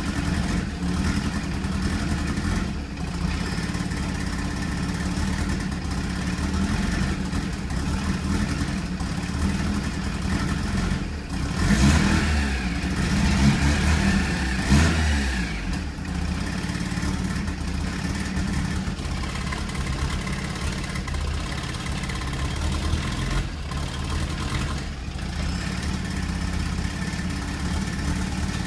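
Mazda RX-7 FC3S's 13B two-rotor rotary engine idling roughly, revved up and back down twice about halfway through. The owner puts the rough running down to the engine going into limp mode with fuel and timing cut.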